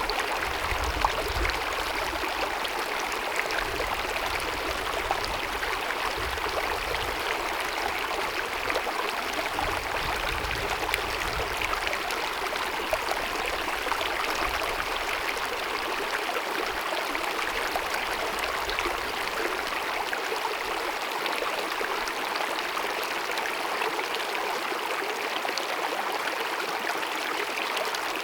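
Small glacier-fed mountain meadow stream babbling and splashing over rocks, a steady flow of running water with little droplet ticks.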